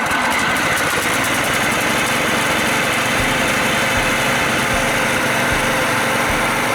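Pressure washer's small gasoline engine running steadily, just started on its newly replaced carburetor and still cold, needing to warm up.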